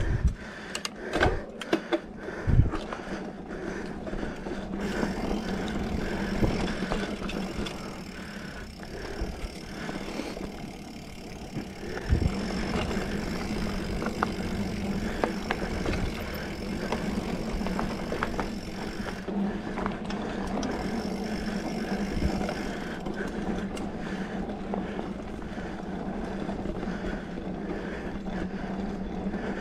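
2020 Specialized Fuse 27.5+ mountain bike ridden along a dirt trail: tyres rolling and the chain and drivetrain rattling steadily, with a few sharp knocks in the first three seconds and one around twelve seconds in. The drivetrain noise comes from a damaged rear derailleur that shifts badly, which the rider takes for a bent derailleur or hanger.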